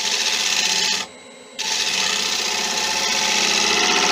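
A gouge cutting the outside of a monkey puzzle bowl blank spinning on a wood lathe, a rasping shaving noise. One cut lasts about a second, then after a short break a second, longer cut starts at about a second and a half in.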